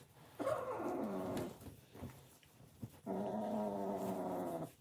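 Wet cat yowling as it is rubbed dry with a towel after a bath: two long, low yowls, the first falling in pitch, the second held steady for nearly two seconds.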